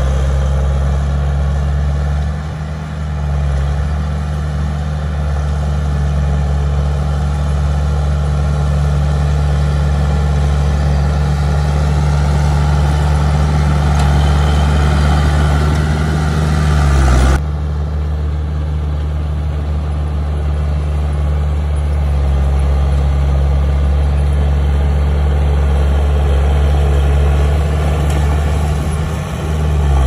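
Heavy diesel engine of earthmoving machinery running steadily at a low, even pitch, with brief dips in level near 3 s and again near the end. The sound changes abruptly about 17 s in, as at a cut to another shot of the engine.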